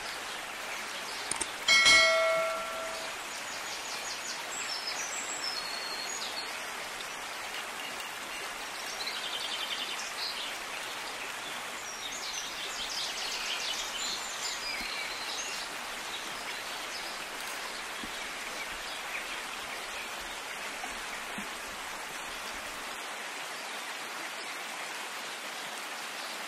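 A metal spoon strikes the plate once about two seconds in: a short, ringing clink. After it comes a steady outdoor hiss, with high chirping calls now and then.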